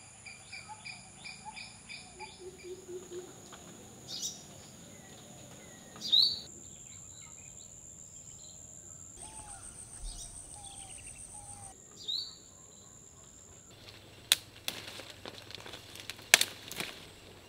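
Countryside ambience: insects make a steady high-pitched drone while birds call, with a quick run of repeated chirps at the start and a few louder rising calls. Near the end come leaf rustling and several sharp snaps and clicks as ripe santol fruit is pulled from its branches.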